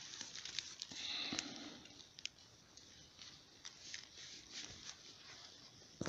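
Faint rustling and crackling of dry fallen leaves and forest litter, with scattered small clicks and a brief louder rustle about a second in.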